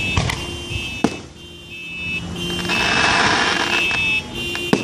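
Fireworks going off: three sharp bangs, one just after the start, one about a second in and one near the end, with a crackling hiss in the middle. Underneath runs a repeating electronic alarm tone that keeps switching on and off.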